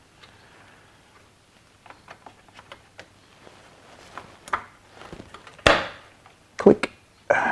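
Stainless-steel radiator guard being worked into place against a motorcycle radiator by hand: a run of faint light taps and clicks, then two sharper knocks about a second apart near the end as it is pushed home.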